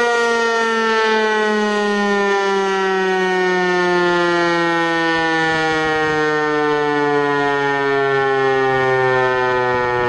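A Federal Signal Eclipse 8 outdoor fire siren sounding loudly during its test, its tone sliding slowly and steadily downward in pitch.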